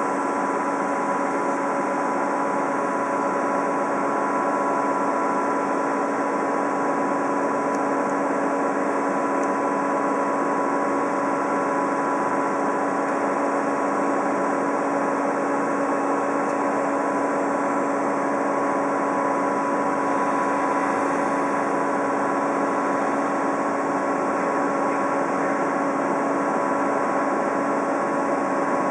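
Electric train standing at the platform, giving a steady electrical hum with several constant tones over an even fan-like hiss, unchanging throughout.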